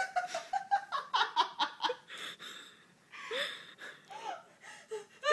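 A young woman laughing hard and half-stifled: a quick run of short laughs in the first two seconds, then gasping breaths and a few short high squeaks of laughter.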